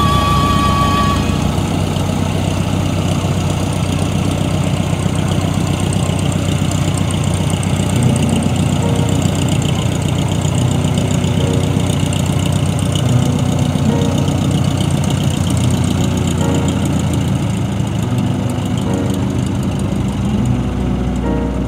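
Small single-engine floatplane's piston engine running steadily as the plane taxis across the water on its floats.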